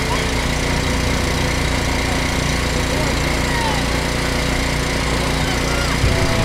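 Electric air blower keeping an inflatable ride inflated, running with a steady, unchanging drone.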